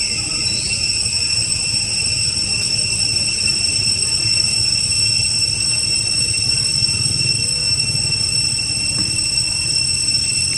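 Steady, high-pitched drone of insects, the kind of unbroken buzz that cicadas make, over a low rumble.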